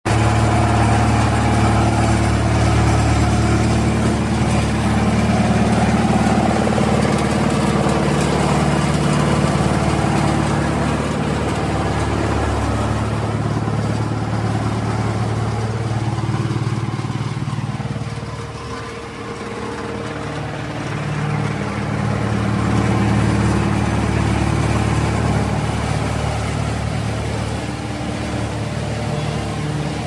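Wood chipping and hammer mill machinery running with a steady, heavy mechanical hum. It eases briefly just past the middle and then picks up again.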